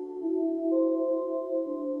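Slow ambient music from synthesizer tones run through the Endorphines Evil Pet granular effect: several sustained, overlapping notes with a bell-like ring, the pitches shifting a few times within the two seconds.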